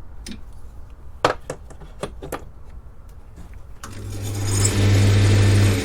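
A few sharp metal clicks and clinks from the lathe chuck and its key. A little under four seconds in, the wood lathe is switched on and its motor hum builds over about a second, then runs steadily with the workpiece spinning.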